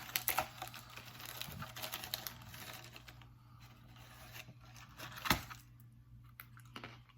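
Foil snack bag crinkling and rustling as it is opened and handled, busiest in the first three seconds, then quieter, with a single sharp snap about five seconds in.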